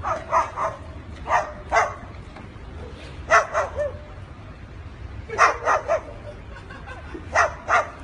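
White cockatoo barking like a dog: short, loud barks in bursts of two to four, about every two seconds.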